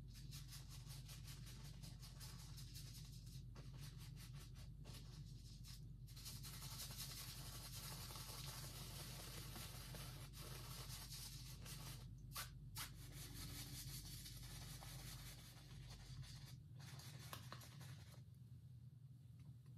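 Bristle brush rubbing and stroking across an oil-painted canvas in quick, repeated scrubbing strokes with short pauses, faint, over a steady low hum.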